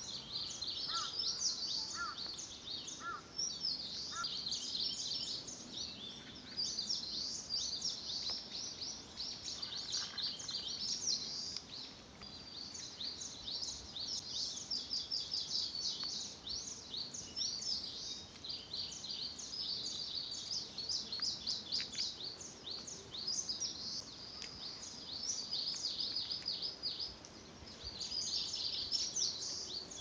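A chorus of small birds singing together, a dense run of quick, high chirps and trills that hardly pauses, with a few lower, separate notes in the first few seconds.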